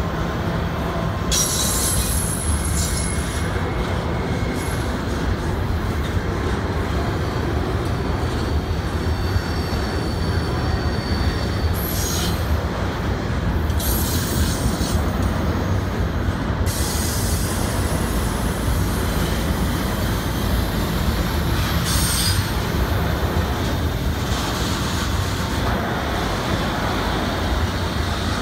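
Double-stack intermodal freight cars of a long CSX train rolling past in a steady rumble of wheels on rail, with high-pitched wheel squeals coming and going every few seconds as the cars take the curve.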